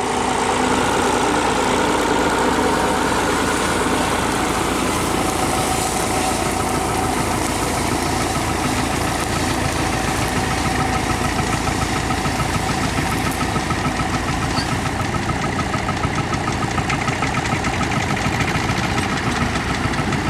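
Massey Ferguson 35X tractor engine running steadily. It gets louder over the first second, then holds an even pitch.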